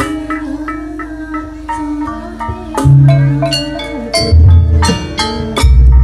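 Live gamelan accompaniment for a Janger show: metal-keyed instruments struck with mallets in quick runs of ringing notes, with deep low strokes that grow louder from about four seconds in.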